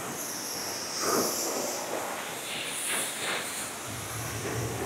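High-pressure water spraying from a self-serve car wash wand onto a car, a steady hiss that swells about a second in and again near three seconds.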